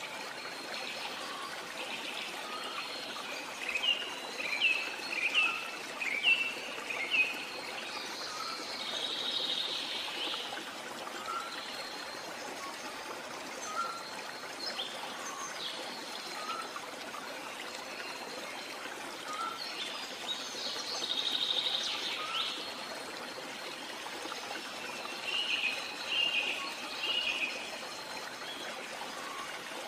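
Birds chirping and singing in short bursts over a steady hiss of running water, with a quick run of chirps a few seconds in and further bursts of song about a third of the way through and again past the middle and near the end.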